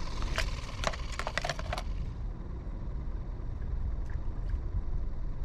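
A quick run of small clicks and knocks from handling gear during the first two seconds, then a steady low outdoor rumble.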